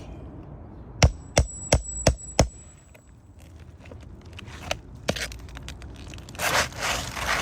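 Five quick hammer strikes on metal, ringing with a high metallic tone, as a roofer works a nail or tool under an old 3-tab asphalt shingle; near the end, a rough scrape of the shingle being worked loose.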